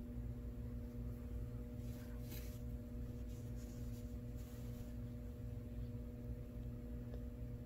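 Steady low hum with a rough low rumble underneath, and a few faint soft brushing noises.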